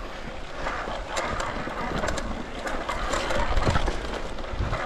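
Electric mountain bike ridden over rough trail: tyres rolling on the ground, the bike rattling with frequent clicks and knocks, and wind on the microphone.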